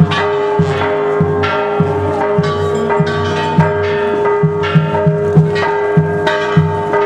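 Church bells ringing in a fast, even peal, a strike a little more often than once a second, each note ringing on under the next over a steady held hum.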